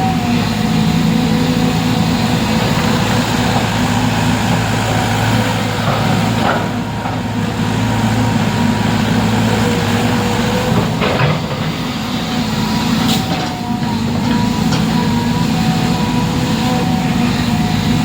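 A large engine running steadily.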